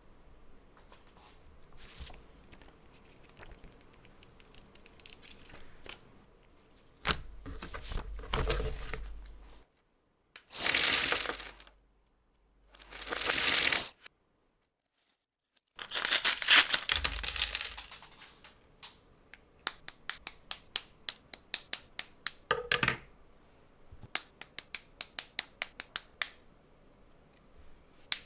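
LEGO packaging being opened: several loud tearing and crinkling bursts, each a second or two long. In the second half come runs of rapid, crisp clicks of plastic LEGO pieces.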